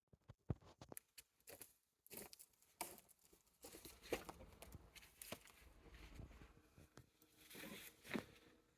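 Near silence with faint, scattered crackles and rustles, growing a little busier with a low rumble about halfway through.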